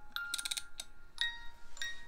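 Wind-up carousel music box playing its tune: single high, bell-like comb notes ringing out a few at a time, with a quick cluster of clicks near the start.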